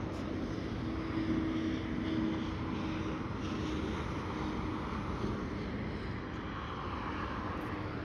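Steady road noise of a moving vehicle: a low rumble of engine and tyres on the road, with a faint steady hum.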